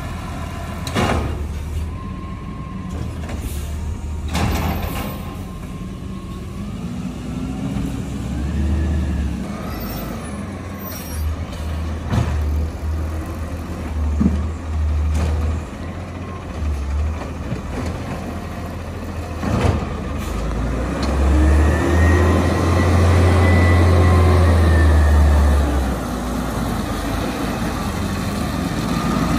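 Natural-gas automated side-loader garbage truck at work: the engine runs with a deep rumble, and several sharp clanks and knocks come from the lifting arm and bins. Twice a whine rises and falls as the engine revs, the second time louder, near the end.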